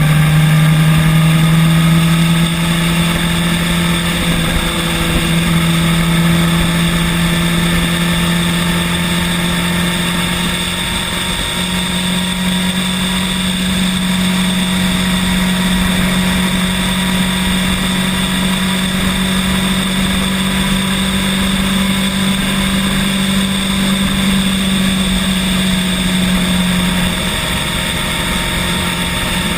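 Bird electric rental scooter being ridden: a steady motor hum whose pitch drifts slowly with speed, over a constant rushing noise.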